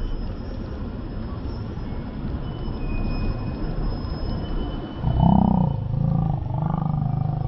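Steady low rumble of city street noise; about five seconds in a loud, low-pitched sound comes in three drawn-out pulses.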